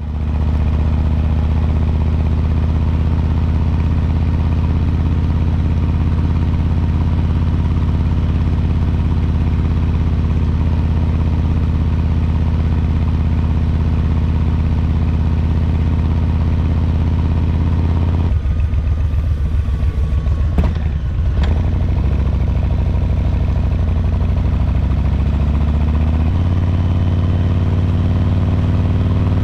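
2022 Harley-Davidson Low Rider S's Milwaukee-Eight 117 V-twin running at a steady cruise. About eighteen seconds in, the throttle is rolled off and the engine's beat slows for a few seconds. It then rises in pitch as the bike accelerates and settles into a higher steady cruise near the end.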